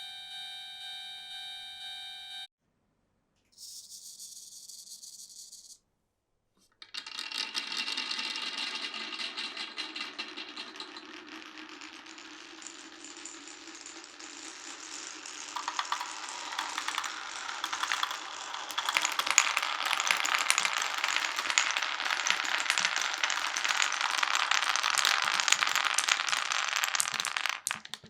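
Many marbles rolling and clattering down a marble run of wooden blocks and pipes, a dense rattle of small clicks that grows louder and busier about halfway through. Before it, a steady pitched tone cuts off about two seconds in, followed by a short hiss.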